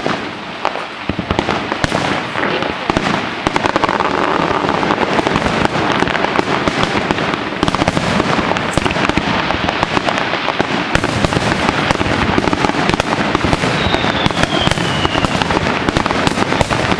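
Fireworks display: dense, rapid bangs and crackles one after another without a break. A short falling whistle comes through about fourteen seconds in.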